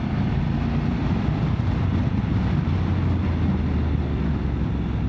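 Motorcycle engine running steadily at road speed while riding, with a low, even hum.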